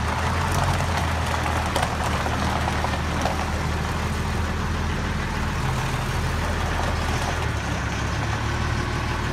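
Engine of a large Hyster forklift idling steadily, a low even hum.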